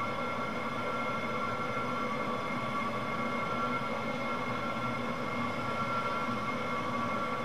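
Steady droning hum over a noisy hiss, with several held high and low tones that do not change.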